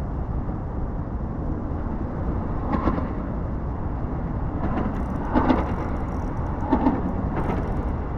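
Steady low rumble of road traffic crossing a bridge overhead, with a few short knocks spread through it.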